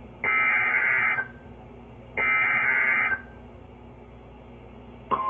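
NOAA Weather Radio emergency alert data bursts: two identical one-second bursts of warbling high digital tones, a second apart, marking a severe thunderstorm warning. Near the end the steady single-pitch warning alarm tone starts abruptly.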